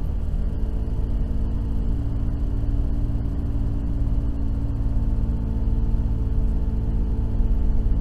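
Car engine and road noise heard from inside the cabin while driving, a steady low hum.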